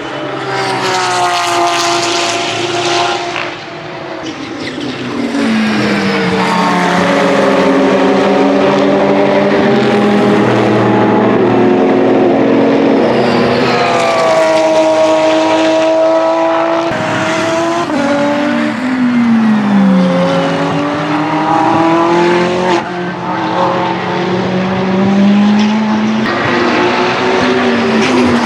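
Twin-turbo V8 engines of Ferrari 488 GT3 EVO race cars going past at full speed, their pitch climbing through each gear and dropping at every shift, with more than one car heard at once.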